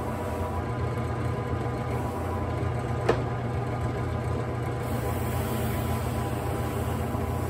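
Ryobi benchtop drill press running steadily, spinning a car-polishing buffer pad while a dyed leather strap is buffed against it, with one sharp tick about three seconds in.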